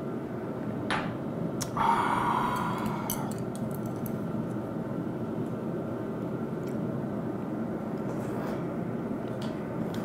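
Steady low room hum with light clicks of chopsticks against a small ceramic bowl. About two seconds in comes one louder pitched sound that fades over about a second.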